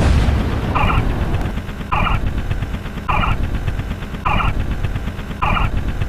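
Layered synthetic sound effects. A loud bang fades out at the start, then a short, two-pitched beep repeats about once a second over a steady low rumble and rapid ticking.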